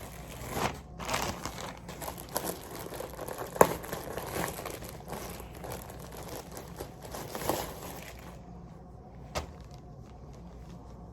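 Packaging crinkling and rustling in handling as a t-shirt is unwrapped, with scattered sharp crackles. It dies down about eight seconds in, leaving one sharp click.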